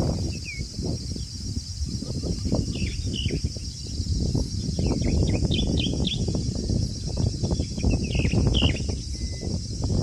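Outdoor ambience of birds chirping in short, scattered calls over a steady high drone of insects. Beneath them runs an uneven low rumbling noise, the loudest sound throughout.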